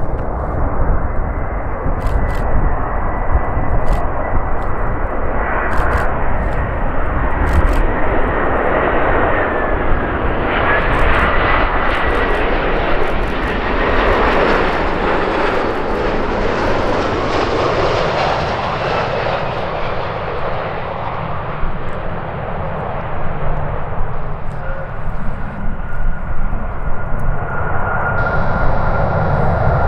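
Airbus A340-300 airliner's four CFM56 jet engines on landing approach: a steady whine with a thin high tone, growing loudest as the aircraft passes about halfway through, then easing off. It swells again near the end as the airliner rolls along the runway after touchdown.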